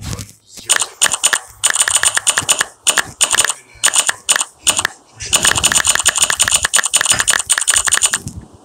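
Quick runs of key-tap clicks from typing on a smartphone's on-screen keyboard, with a short pause about halfway through.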